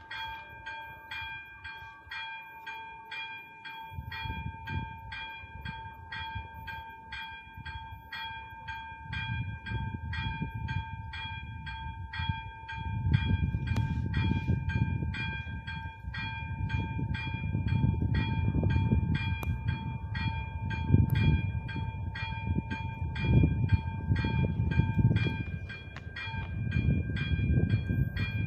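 AŽD 71 level-crossing warning bell ringing in a steady, even rhythm while the crossing lights flash. A train rumbles in underneath, growing louder from about halfway, with swells near the end.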